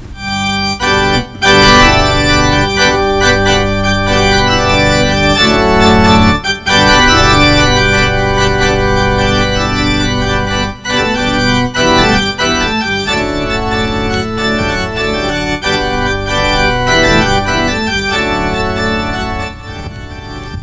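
Organ music: sustained chords, changing every second or two, begin at once and ease off near the end.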